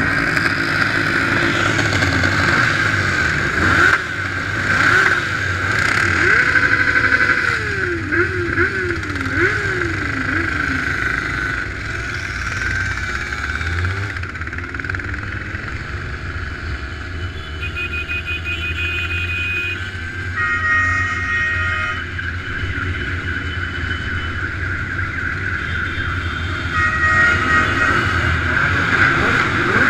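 Motorcycle engines and road noise heard from a rider's bike in a moving group of motorcycles, with engines revving up and down a few seconds in.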